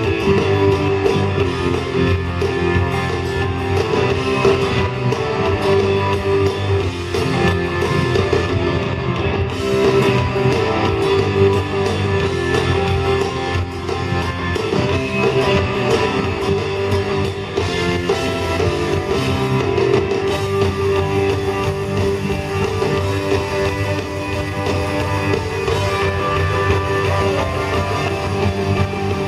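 Live rock band playing, with electric guitar to the fore over a drum kit.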